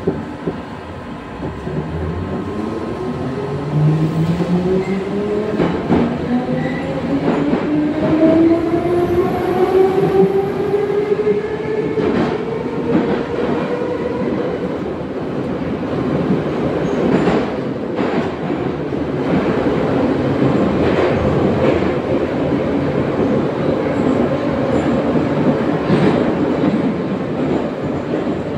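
Metro train of the 'Boeing' type pulling away, heard from inside the car: its traction motors whine in several parallel tones that rise steadily for about 13 seconds as it accelerates. It then settles into a steady hum over wheel-and-rail running noise, with occasional clacks.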